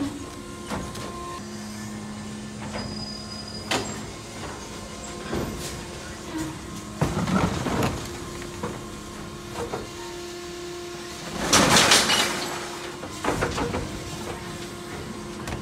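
Electric Mack LR New Way Sidewinder garbage truck at work: steady electric whines that start and stop as its machinery runs, with clicks and knocks, and two louder rushing bursts, the first about seven seconds in and the loudest about twelve seconds in.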